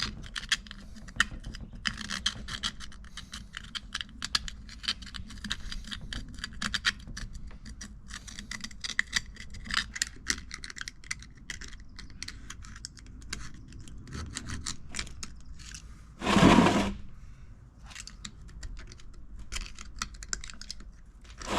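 Scraping and picking embedded metal chips out of the inside of an old 8-inch Cushman four-jaw lathe chuck: a steady run of short metal-on-metal scratches and clicks, with one brief loud rush of noise about three-quarters of the way through.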